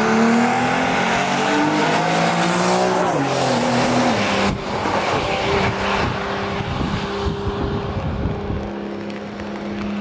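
Car engine being driven hard on a race circuit: it accelerates with rising pitch for about three seconds, drops about four seconds in, then holds a steady note, over a constant rushing noise.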